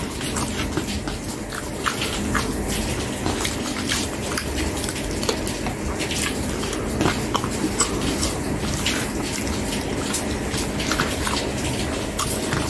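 Close-miked wet chewing and lip smacking, full of small irregular clicks, with a metal spoon now and then scraping food from a bowl.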